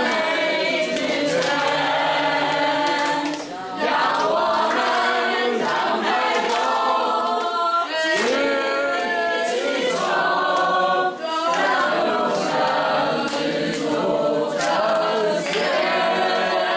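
A choir singing a hymn in sustained phrases, with brief breaks between phrases about three and a half, eight and eleven seconds in.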